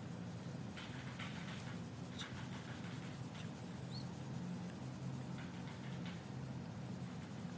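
Red coloured pencil scratching on paper in short, irregular colouring strokes, over a steady low hum.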